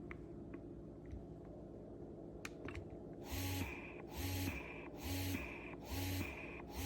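Wearable electric breast pump starting about three seconds in and cycling its suction in a steady rhythm, a little more than one pulse a second. Each pulse is a whirring motor note with a hiss of air. A few faint clicks come before it starts.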